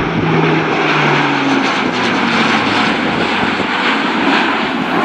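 Airbus A400M's four Europrop TP400-D6 turboprop engines running at display power as the aircraft flies past: a loud propeller drone whose low tones drop in pitch during the first two seconds as it passes and banks away.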